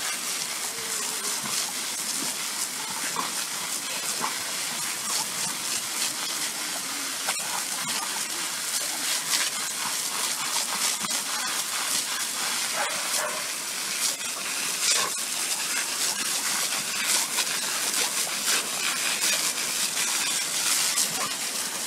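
Garden hose spray hissing steadily, with a constant crackle of water spattering as a dog bites into the jet.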